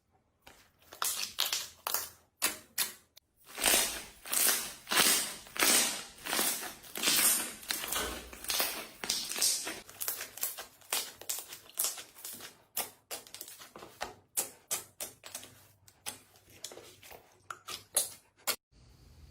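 Slime being squeezed and pressed by hand: a long, irregular run of short squishing pops, several a second, starting about a second in.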